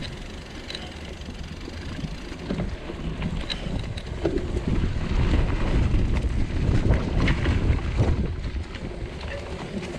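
Mountain bike riding over a leaf-covered dirt forest trail: tyre rumble and rattling of the bike, with wind buffeting the microphone. It gets louder about halfway through, and a few short clicks and knocks sound over it.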